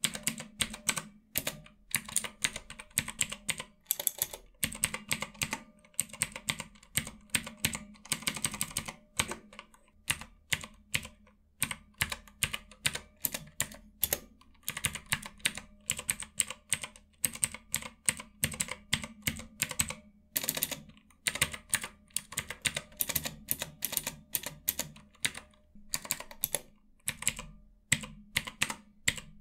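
Mechanical numpad with Outemu Blue clicky switches being typed on in irregular runs of keystrokes, each press giving a sharp click, with short pauses between runs.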